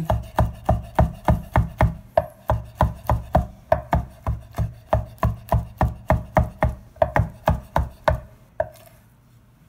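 Chef's knife chopping raw shrimp on a wooden cutting board: a steady rhythm of knife strikes, about four a second, stopping near the end.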